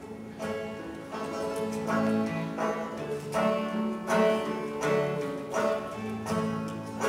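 Acoustic guitar and banjo playing a tune together, the plucked notes starting about half a second in.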